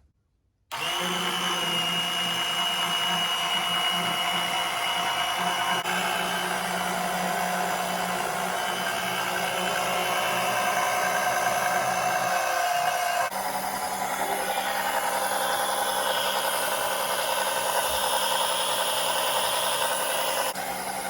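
Oil extractor pump starting about a second in and running steadily with a high whine, its note shifting slightly twice, as it sucks out through the dipstick tube the last engine oil that drained down after the oil filter was taken out.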